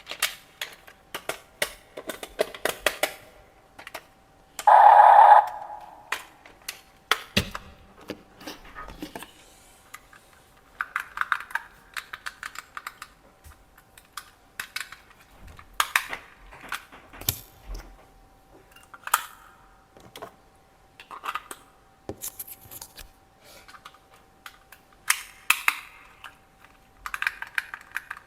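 Irregular clicks and knocks of small plastic toy parts and packaging being handled, with one louder rasping burst about five seconds in and a faint steady tone underneath.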